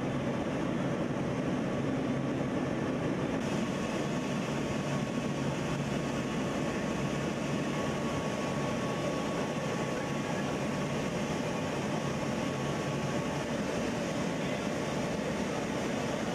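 Steady drone of a C-17 Globemaster transport plane heard inside its cargo hold: engine and air noise at an even level, with a faint steady tone above it.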